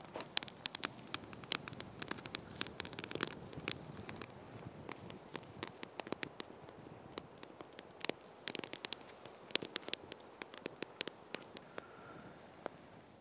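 Small wood campfire crackling, with irregular sharp pops and snaps over a low hiss.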